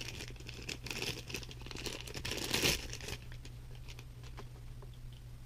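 Thin plastic packaging bag crinkling as a bicycle V-brake lever is pulled out of it, loudest about two and a half seconds in and quieter after about three seconds.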